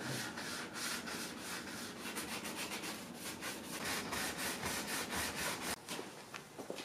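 Hand wet-sanding a car's painted body panel with a sandpaper-wrapped block: quick back-and-forth scratchy rubbing strokes, which die away about six seconds in.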